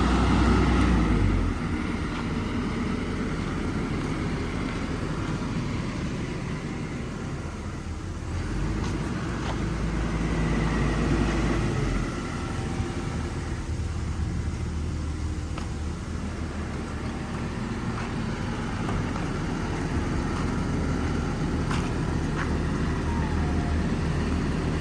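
Kobelco excavator's diesel engine running, loud at first, then easing off, with the engine note swelling and settling again partway through. A few faint clicks or knocks come near the end.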